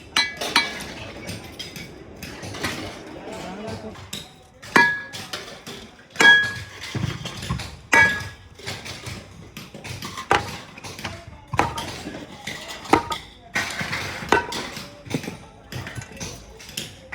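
Hammer striking metal parts of a heavy electric motor: sharp metallic clanks every second or two, the strongest ringing briefly, among lighter clinks of metal on metal.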